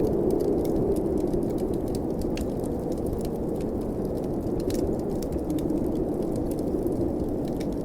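Storm wind blowing steadily as a low, even rush, with the small irregular pops and crackles of a wood fire burning in a fireplace over it.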